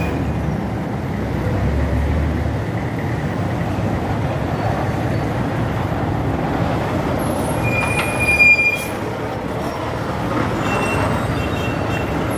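Roadside traffic noise: a steady rumble of passing vehicle engines, with a short high squeal about eight seconds in and a fainter one a few seconds later.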